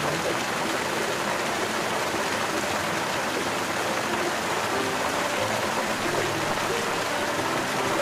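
A steady, even rushing hiss with faint low notes of background music under it.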